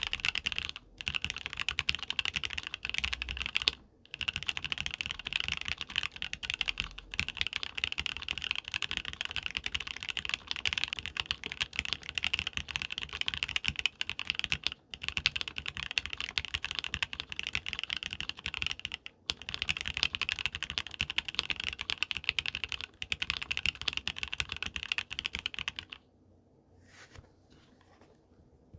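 Fast, continuous typing on a KBD67 Lite R2 mechanical keyboard with lubed Gateron Ink Black v2 linear switches and GMK keycaps. The typing stops a few seconds before the end, leaving only a few faint key clicks.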